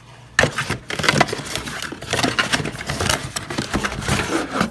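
Cardboard drone box and its paper inserts being handled and pulled open: a dense run of rustling, scraping and tapping that starts about half a second in.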